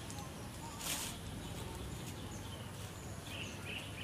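Short, high animal chirps in the last second, with a brief hiss about a second in, over a steady low background rumble.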